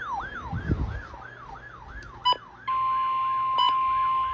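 An electronic siren sweeps down in pitch about three times a second throughout. A little under three seconds in, a steady single-pitched alert tone comes in over it, the weather-radio warning alarm that comes before a tornado warning is read.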